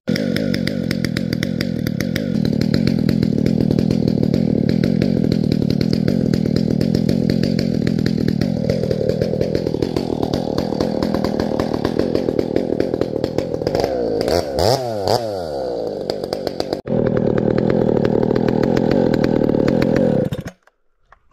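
Husqvarna two-stroke chainsaw running steadily. Its pitch shifts about halfway through and rises and falls quickly once about two-thirds in. It stops abruptly near the end.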